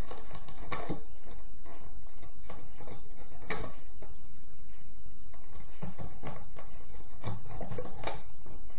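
Scattered small clicks and taps of rubber loom bands being stretched and snapped onto the plastic pegs of a Rainbow Loom, over a steady hum and hiss.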